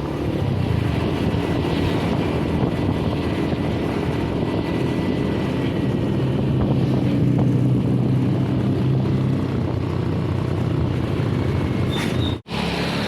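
Bus diesel engine running steadily with a low hum under road and traffic noise. The sound drops out abruptly for a moment near the end.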